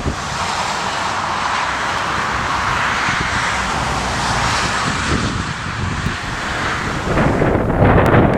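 Steady rush of a jet airliner's engines during a landing, mixed with gusty wind blowing on the microphone. About seven seconds in it turns louder and rougher.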